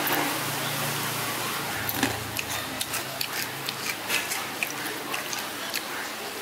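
Hot oil sizzling steadily with frequent small crackles and pops, from deep-frying wontons.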